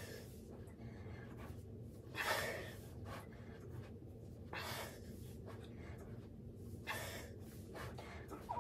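A person breathing hard from exertion during a workout: three heavy breaths about two and a half seconds apart, the first the loudest, over a steady low hum.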